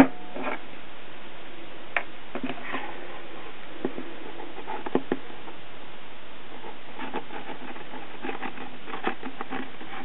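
Hands handling a tube of E6000 glue and lace trim on a wooden tabletop: scattered light clicks, taps and rustles over a steady hiss, with a sharp click right at the start.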